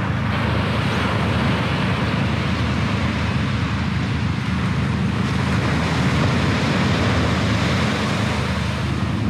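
Steady wash of sea surf breaking on the beach, with wind buffeting the microphone and adding a low rumble.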